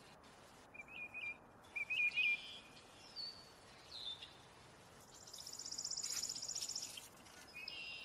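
A few short bird chirps and whistled notes, the loudest about two seconds in. Then a chipping sparrow's song: a high, dry, even trill of rapid notes on one pitch lasting about two seconds.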